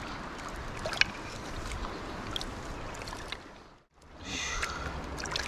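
Flowing river water, a steady rushing hiss, with a single sharp click about a second in. The sound drops away almost to nothing for a moment just before four seconds in, then the water noise comes back.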